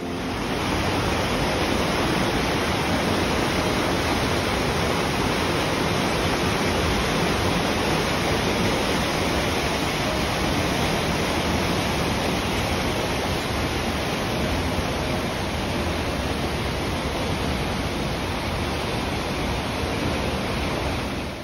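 Rogue River whitewater rushing through a narrow rock gorge: a steady, even rush of water that starts and stops abruptly.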